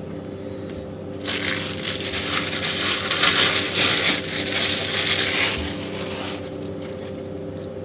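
Plastic food packaging crinkling and crackling for about four seconds as a pack of chicken thighs is opened, over a faint steady hum.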